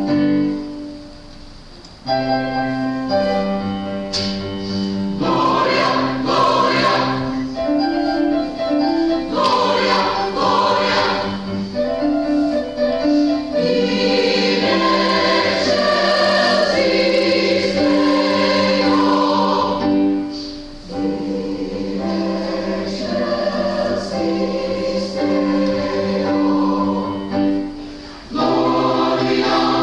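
Choir singing a hymn with organ accompaniment, in long held chords with short breaks between phrases.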